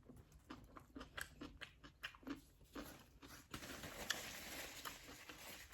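A person chewing and biting food close to the microphone: a run of faint, quick crunches and wet mouth clicks.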